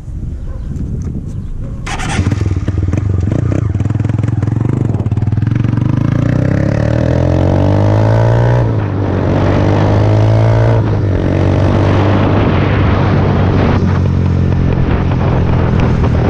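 Honda CG Titan motorcycle's single-cylinder four-stroke engine running, then pulling away and accelerating. Its pitch rises through each gear, with upshifts about nine, eleven and fourteen seconds in.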